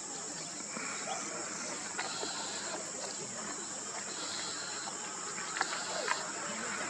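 Steady, high-pitched drone of insects, crickets, with two short clicks near the end.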